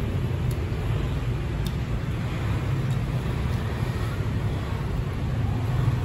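A steady low rumble of background noise with no clear pitch, and a few faint clicks.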